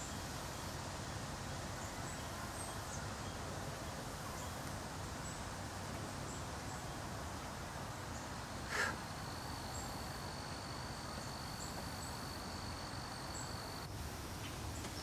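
Steady outdoor background hiss with faint scattered high ticks. A single sharp click comes about nine seconds in, then a thin, steady high tone is held for about five seconds and stops.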